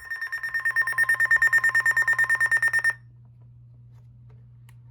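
Electronic alert tone beeping rapidly, about ten pulses a second, for about three seconds, then cutting off suddenly. A faint low hum remains after it.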